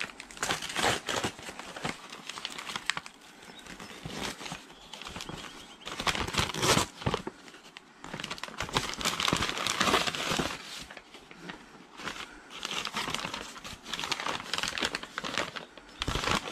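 A white mailing envelope being torn open and its packing crinkled and rustled by hand, in irregular bursts of crackle and tearing.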